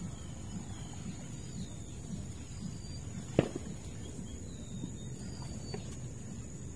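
Marshside ambience: a steady high insect trill with a few short bird chirps over a low rumble. A single sharp knock comes about three and a half seconds in.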